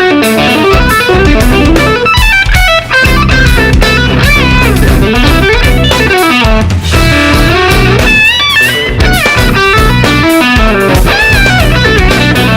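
Rock music led by electric guitar, with melodic lines that bend notes up and down, one prominent bend about eight seconds in, over a steady low backing.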